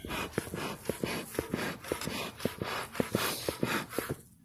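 Bee smoker's bellows pumped in a quick run of breathy puffs, about three to four a second, stopping shortly before the end.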